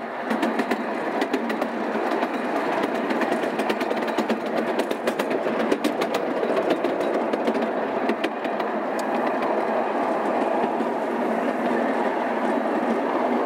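Miniature park train running along its track: a steady rolling noise with many small, irregular clicks from the wheels on the rails.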